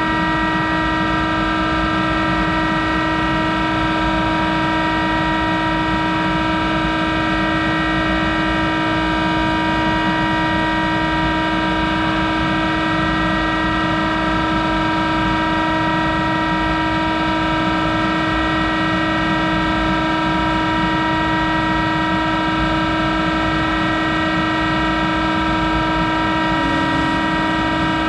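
Monarch 10EE lathe running steadily, its drive and spindle giving an even hum and whine of several fixed pitches that does not change.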